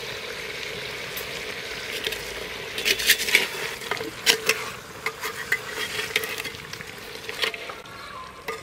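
Duck meat with papaya and potato pieces sizzling in a clay pot while a spatula stirs it. The spatula scrapes and knocks against the pot, with the sharpest knocks about three seconds in and more scattered ones after.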